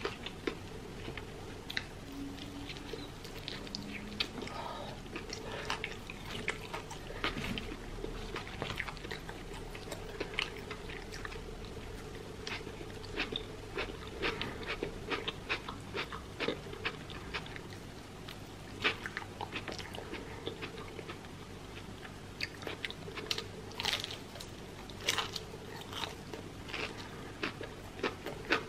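Close-miked eating of crispy fried chicken: irregular crunching and chewing, with the crisp coating crackling as pieces are pulled apart by hand.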